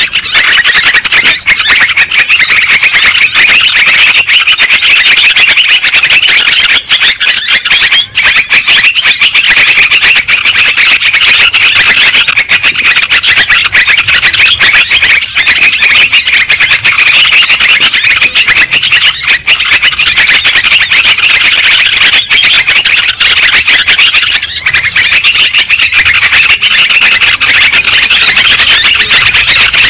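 Bird-lure recording of yellow-vented bulbuls (trucukan) calling: a loud, dense, unbroken chorus of chattering chirps from many birds at once, played to draw in wild bulbuls for trapping.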